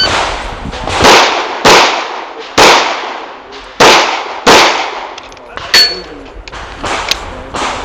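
Springfield Armory EMP compact 1911-style pistol fired five times in a quick string, the shots falling roughly in pairs, each with a short echo. After the string come a few fainter clicks and a brief metallic ring.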